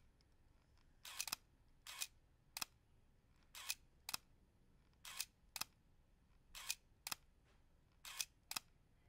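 Canon EOS 3 35 mm SLR firing its shutter repeatedly at 1/8000 s with the back open: sharp mechanical clicks, mostly in pairs about half a second apart, a pair every second and a half or so.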